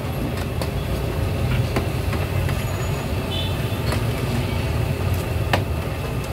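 Steady low rumble of street traffic with scattered sharp clicks.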